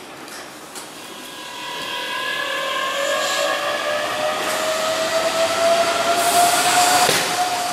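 Keihan 7200-series electric train pulling out of the station, its VVVF inverter traction motors whining in several tones that rise slowly in pitch as it gathers speed. The sound grows louder as the cars pass.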